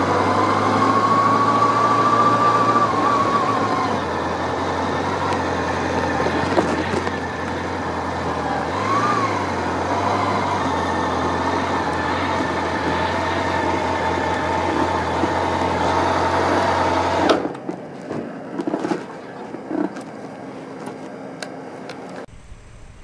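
Honda CB750 (RC42) air-cooled inline-four running at low speed and idling, then cutting out abruptly about three-quarters of the way through. A few light clicks and knocks follow once it is off.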